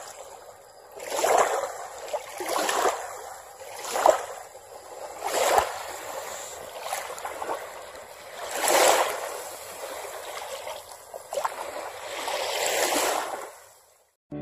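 Rushing water sound like waves washing in, swelling and falling in irregular surges every one to three seconds, then fading out near the end.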